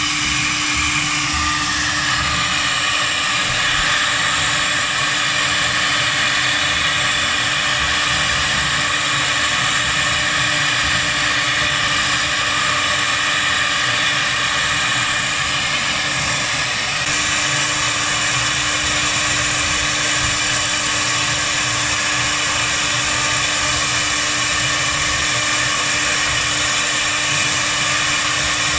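CNC router spindle running at high speed, its bit carving a wooden cylinder turned on the rotary axis: a steady, high whine with several held tones over an even cutting noise. The sound shifts slightly about seventeen seconds in.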